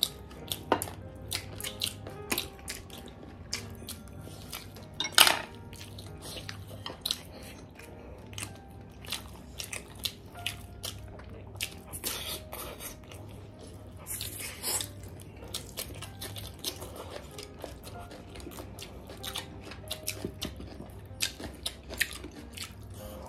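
Two people eating close to the microphone: chewing and biting into fried chicken legs and noodles, with many short smacking and clicking sounds and chopsticks knocking against plates. The loudest click comes about five seconds in.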